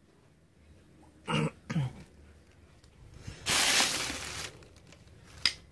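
A person clearing their throat in two short voiced grunts, then a loud, noisy burst about a second long, and a sharp click near the end.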